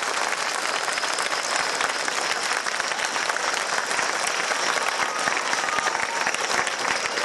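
Large crowd of schoolchildren applauding, with steady, dense clapping throughout.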